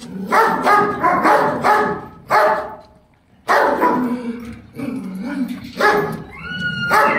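Dogs barking in quick runs, with a short pause about three seconds in. A long high whine starts near the end.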